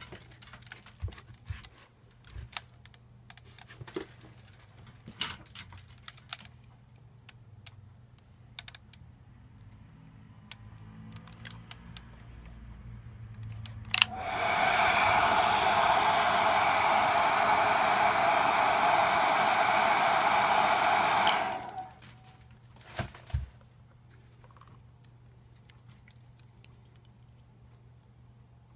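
An electric hair-dryer-type blower switched on with a click, running steadily for about seven seconds and then switched off. Light clicks and taps from handling the parts come before and after it.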